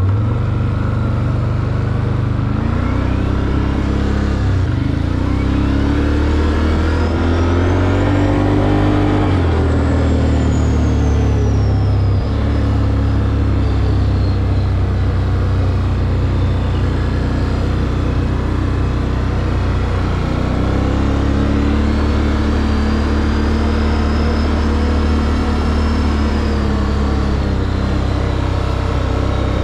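Can-Am Outlander 800 Max XT ATV's V-twin engine running under way, rising in pitch as it speeds up and falling as it eases off, twice.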